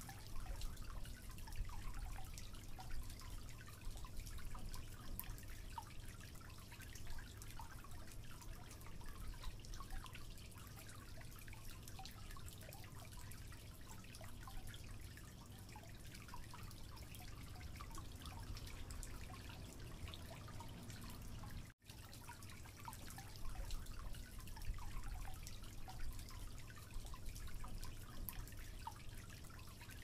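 Faint dripping-water ambience of scattered small drips and ticks over a steady low hum, cutting out for an instant about two-thirds of the way through.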